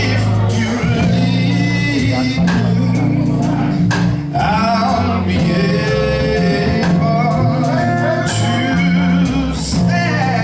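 Gospel quartet performing live: male singing over a band with a bass line and a steady drum beat.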